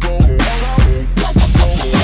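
Background electronic music with a steady drum beat over deep bass.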